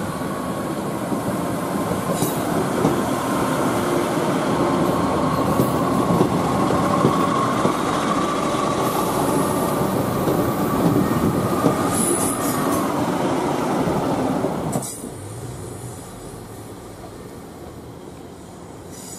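Northern Class 150 Sprinter diesel multiple unit running past on curved track: diesel engine and wheel noise with a thin steady squeal from the wheels on the curve. About fifteen seconds in the sound drops suddenly to a much quieter distant rumble.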